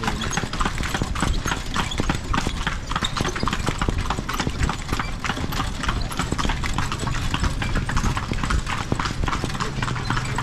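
Horse's hooves clip-clopping in a quick, even rhythm as it pulls a kalesa (horse-drawn carriage), over a steady low rumble.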